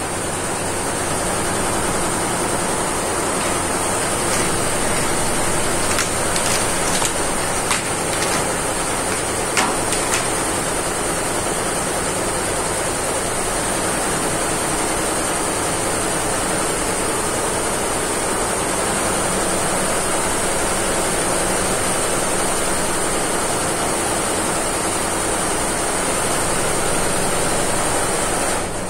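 Steady hum and hiss of embroidery-workshop machinery, with a high, thin whine over it and a few light clicks between about six and ten seconds in.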